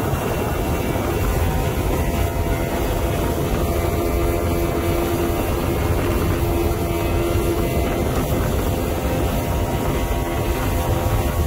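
Johnson 225 V6 two-stroke outboard running steadily at speed, its engine tone holding level, over the rush of the churning wake and wind on the microphone.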